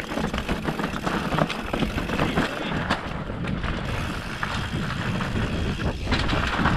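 Mountain bike ridden over a rough dirt trail: a steady rumble of tyres on the ground with many quick rattles and clicks from the bike.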